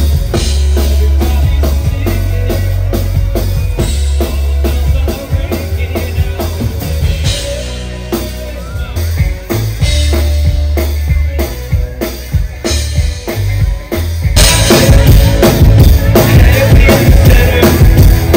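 Live band playing upbeat modern pop, amplified: a drum kit with heavy kick drum and an electric guitar. It gets louder about fourteen seconds in.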